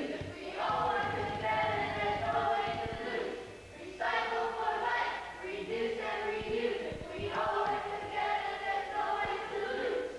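A group of children singing together in phrases a few seconds long, with short breaks between them.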